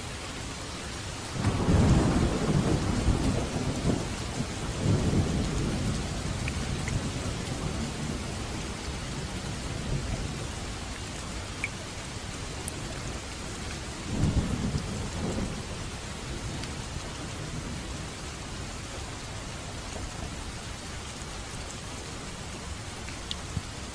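Steady rain hissing, with rolls of thunder rumbling over it: one long roll in two swells starting a second or two in, and a shorter one about halfway through.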